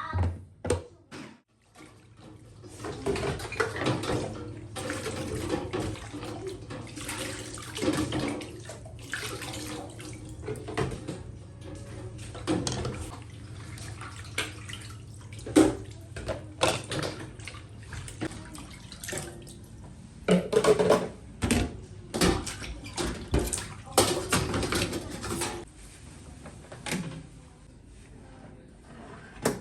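Water running into a sink in uneven spurts, with occasional sharp knocks and clatter.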